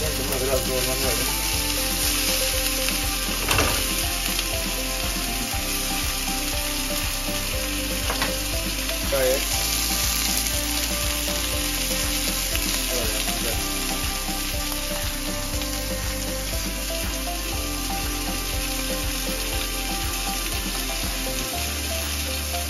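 Ribeye steaks frying in oil in a non-stick pan: a steady sizzling hiss, with a couple of short light knocks in the first ten seconds.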